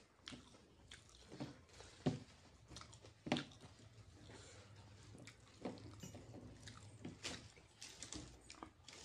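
Eating sounds: a man chewing a mouthful of chicken noodles with wet lip smacks, while his fingers squish through the noodles on the plate. Faint, irregular smacks, the sharpest about two and three seconds in.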